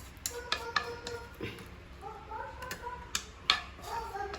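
A cooking utensil clinking and knocking against a pan, about half a dozen sharp clicks with the loudest about three and a half seconds in, over faint voices in the background.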